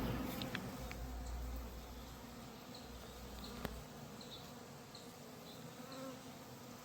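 Honey bees buzzing as they fly around a freshly installed hive, their hum rising and falling as individual bees pass close. A single sharp click about three and a half seconds in.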